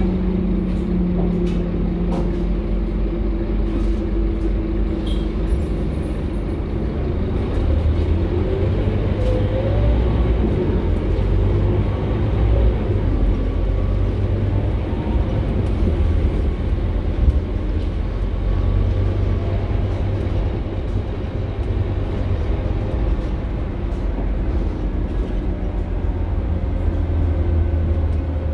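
Scania K230UB Euro 4 single-deck bus running along the road, heard inside its passenger cabin: a steady low rumble of the diesel engine and drivetrain mixed with road noise, swelling and easing a little as the bus drives on. One short knock about 17 seconds in.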